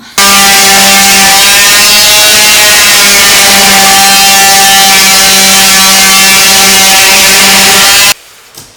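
Electric power sander running continuously on hardened Bondo body filler, a loud steady hum over a dense hiss. It switches on abruptly just after the start and cuts off suddenly near the end.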